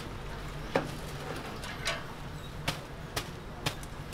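Wire-mesh skimmer and chopsticks knocking against a stainless steel deep fryer as twisted doughnuts are scooped out of the hot oil. A handful of sharp clinks and taps, the loudest about a second in, over the steady sizzle of the frying oil.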